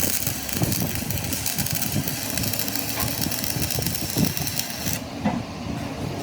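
Workshop machinery running with a dense, irregular low knocking rumble. A high hiss cuts off about five seconds in.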